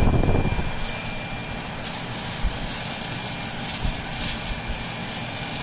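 Over-the-range microwave's exhaust blower running steadily with a faint steady whine, pushing air out the top vent into the foil duct: the blower has been flipped and now works correctly. A brief low rumble at the very start and a few light crinkles of plastic later on.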